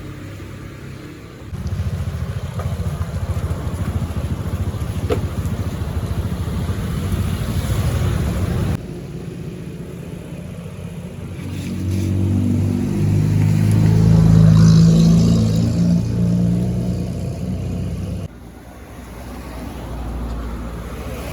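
A motor vehicle's engine running with a fast, low rattle, then a louder, pitched engine note that rises and swells in the middle before dropping off abruptly.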